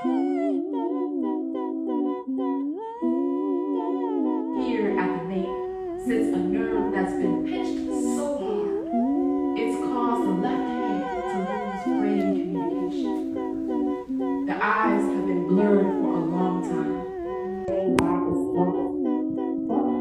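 Wordless a cappella humming in several layered voices, holding long, wavering notes that move up and down in steps.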